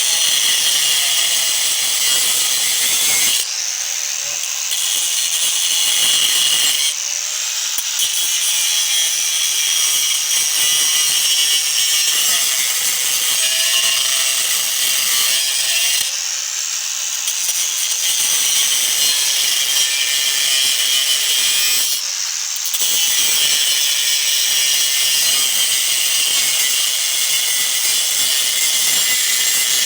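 Power tool with an abrasive cutting wheel grinding through the metal of an electric motor, a loud, steady, high-pitched grind. It eases off briefly four times as the wheel comes off the cut, then bites in again.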